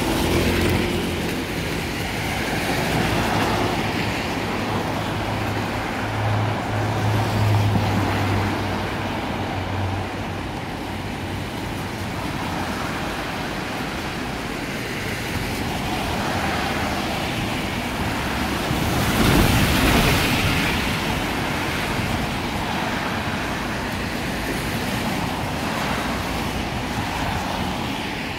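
Road traffic on a rain-soaked street: cars passing with the hiss of tyres on wet tarmac, swelling and fading as each goes by. The loudest pass comes about two-thirds of the way through. A low steady hum runs under the first third.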